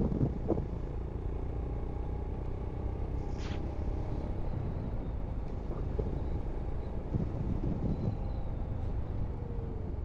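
Royal Enfield Scram 411's single-cylinder engine running steadily at cruising speed, heard from on board the bike together with steady wind rush.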